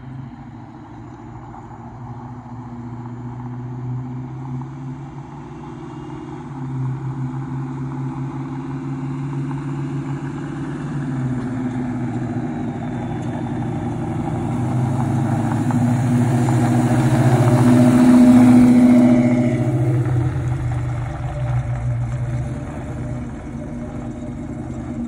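Oldsmobile Cutlass 442 big-block V8 running at low speed as the car approaches, growing steadily louder to a peak about three-quarters of the way through as it drives past, then easing off as it pulls away.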